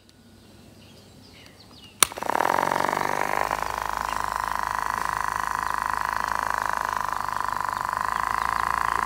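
A click about two seconds in, then a small DC motor starts and whirs steadily with a fast, even buzz. Faint bird chirps can be heard before it starts.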